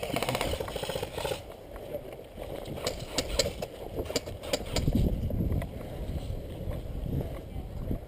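Airsoft guns firing during a game: a fast rattling burst in the first second or so, then a few single sharp pops about three seconds in, over low rumbling handling and wind noise on the microphone.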